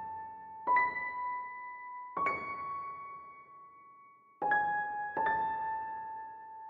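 Slow background music: single electric-piano notes struck about every second and a half, each ringing out and fading.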